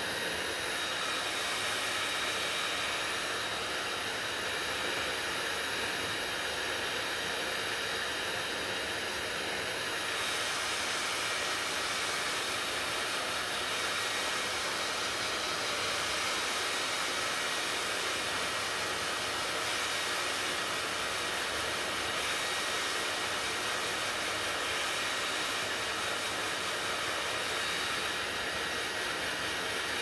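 Handheld hair dryer running steadily, a rush of blown air with a thin high whine from its motor; the sound shifts slightly about ten seconds in.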